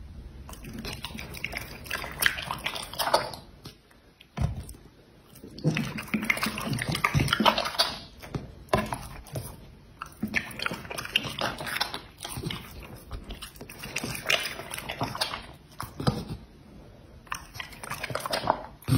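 Dog chewing and swallowing strips of raw chicken breast taken from a hand, in irregular bursts of chewing with a short pause about four seconds in.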